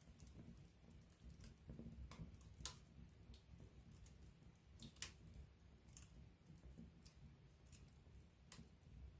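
Wood campfire crackling quietly: scattered sharp pops, about half a dozen, over a low steady rumble of the flames.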